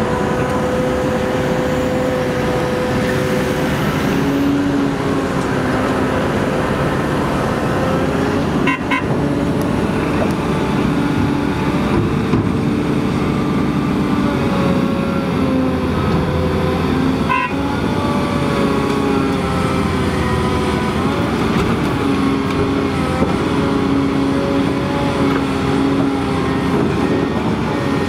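A Komatsu PC800LC hydraulic excavator working under load, its diesel engine running steadily with several whining tones over a low rumble as it digs and swings a bucket of soil. Two short knocks come about nine and seventeen seconds in.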